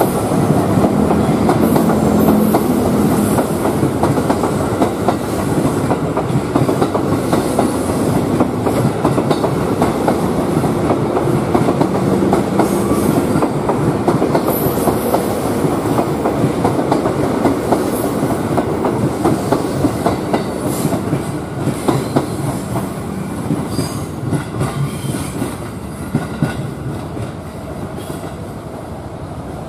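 KRL commuter electric multiple-unit train running past, its wheels clattering steadily over the rail joints under a continuous rumble. The clatter slowly fades over the last several seconds as the train draws away.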